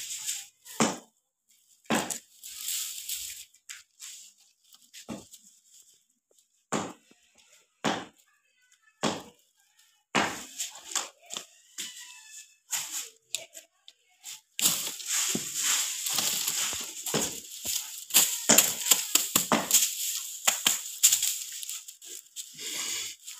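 Bundles of thin, stiff broom sticks being handled and bunched together: scattered clatters and rustles at first, then a dense, continuous rustling and clicking from a little over halfway through.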